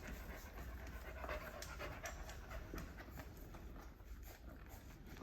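A mini Australian Labradoodle panting softly.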